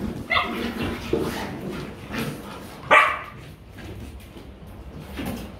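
Rottweiler puppies play-fighting, giving several short barks and yips; the loudest, a sharp bark, comes about three seconds in.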